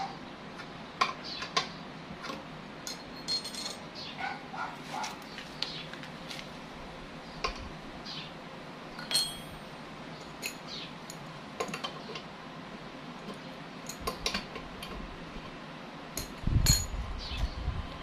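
Hand tools and metal fittings clinking and tapping as they are handled, in scattered light knocks, some with a brief metallic ring. A heavier thump comes near the end.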